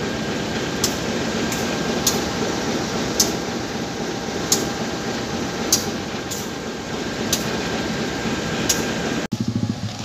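Flat wagons of a freight train loaded with concrete railway sleepers rolling slowly past close by: a steady rumble of wheels and running gear, with a light click every half second or so. About nine seconds in, the sound cuts to a lower, steadier engine hum.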